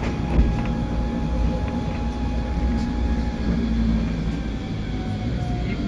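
Electric rack-railway car running downhill with a steady low rumble and a thin whine that slowly falls in pitch as it slows for a stop. A few faint clicks are heard over the track.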